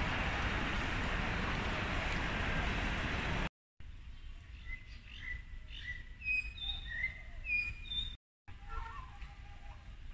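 Steady crowd and hall noise of a busy railway station concourse, cut off suddenly about three and a half seconds in. Then birds chirping, with short whistled notes and quick rising and falling calls, several a second.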